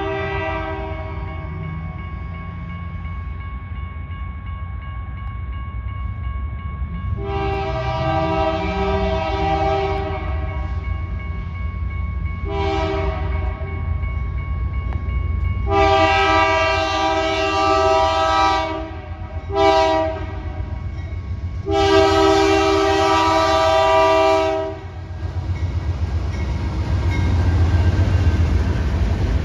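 A BNSF freight locomotive's air horn, sounding as a chord, blows five blasts, long, short, long, short, long, for a grade crossing as the train approaches. The low rumble of the locomotive and the train builds under it, growing louder near the end as the lead unit passes close by.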